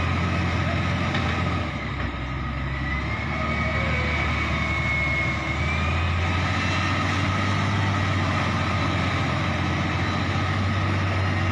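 Heavy construction machine's diesel engine running steadily, its low note easing off about two seconds in and building again around six seconds, with a thin high whine that rises and then holds.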